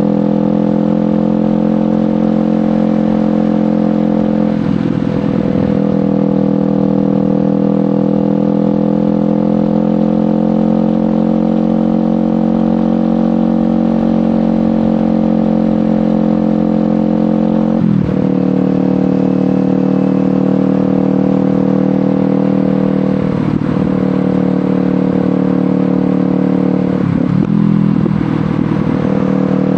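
Kawasaki Ninja 500 parallel-twin engine running through an aftermarket LeoVince GP Corsa Evo exhaust while riding, at a steady engine speed. The note breaks off briefly and picks up again four times, about 5, 18, 23 and 27 seconds in.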